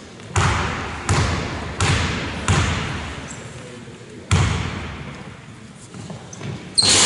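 A basketball bounced on a hardwood sports-hall floor by a player before a free throw. There are four bounces about 0.7 s apart, then one more about four seconds in, each echoing in the large hall. Near the end a louder burst of noise begins.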